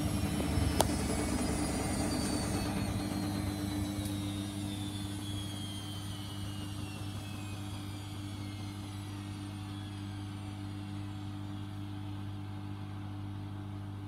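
Bendix BIW 103W 1000 rpm washing machine winding down after its spin: the drum motor's whine falls steadily in pitch and the sound eases off over the first several seconds, over a steady low hum. A sharp click about a second in.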